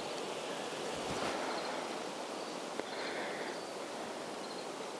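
Steady outdoor rustle of wind moving through tree leaves, with faint high chirps over it and a single small click nearly three seconds in.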